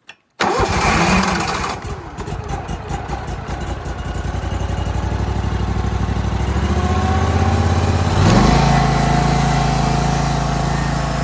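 Barreto SG3630 stump grinder's engine starting up, choked and at low throttle, catching abruptly about half a second in and running on. About eight seconds in its note changes and it settles into a steadier run.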